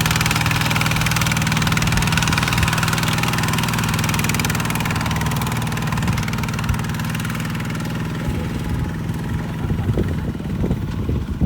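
Kubota RT140 single-cylinder diesel engine of a two-wheel rice-hauling tractor running steadily, growing gradually quieter toward the end.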